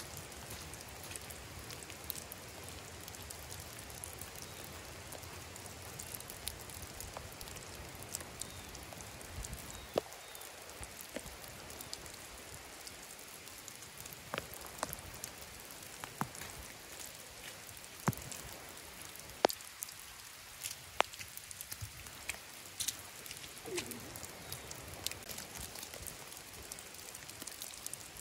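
Steady light rain hissing, with scattered single drops tapping close by.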